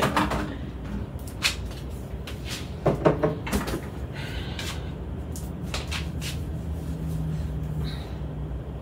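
Refrigerator being loaded and shut: a series of knocks and clunks as glass jars are set on the shelves, with the loudest knocks near the start and about three seconds in, then scattered lighter knocks.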